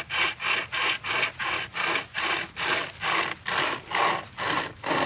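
Hand-pulled pocket chainsaw, a toothed chain with a handle at each end, sawing back and forth through dry, stiff wood in quick, even rasping strokes, about three a second.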